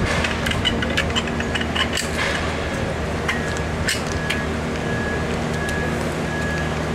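A motor running steadily with a low hum, joined about three seconds in by a short high beep repeating at an even pace. A few sharp clicks are heard in the first half.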